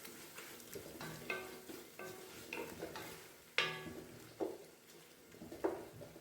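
A metal spoon stirring food in a metal cooking pot, clinking and scraping against its sides at irregular intervals, each strike ringing briefly.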